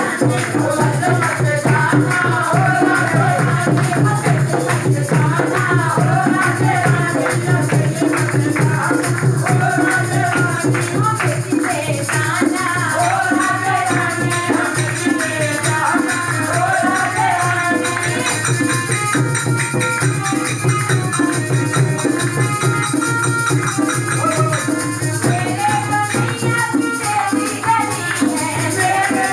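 A group singing a Hindi devotional bhajan to harmonium, with hand-clapping and a jingling percussion keeping a steady beat.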